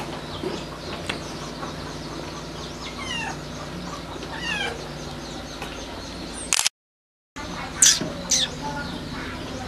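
A cat gives a few short, high mews, the last two louder, over a steady low hum. The sound cuts out completely for a moment about two-thirds of the way through.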